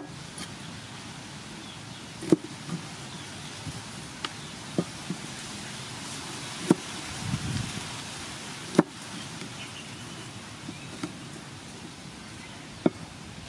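Cleaver chopping limes on a wooden chopping board: irregular sharp knocks of the blade striking the board a second or two apart, a handful louder than the rest.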